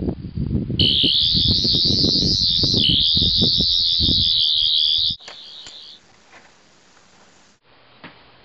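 Sonic screwdriver sound effect: a loud, warbling high-pitched whine for about four seconds over a low rumble, cutting off about five seconds in. A few faint clicks follow near the end.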